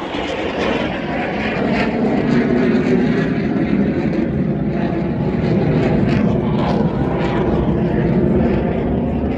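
Blue Angels jet flying overhead: a loud, steady rush of jet engine noise.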